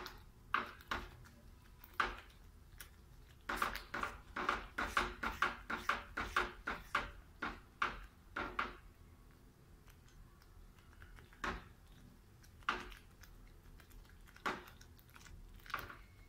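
Silicone spatula stirring thick gravy in a frying pan: a quick run of scraping, knocking strokes against the pan for about five seconds, then a few single strokes.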